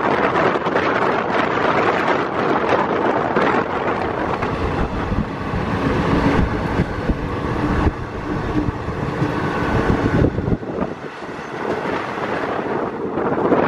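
Passenger train running at speed: a steady rumble of wheels and coaches on the rails, with wind buffeting the microphone. The low rumble briefly drops away about ten and a half seconds in.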